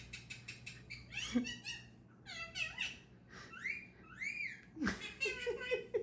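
Ringneck parrot calling: a quick run of repeated chattering notes, then several high, arching squawks, and a string of lower repeated notes near the end.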